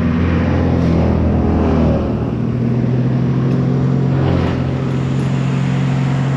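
A large engine running steadily at a constant speed, its pitch wavering a little in the first two seconds and then holding even.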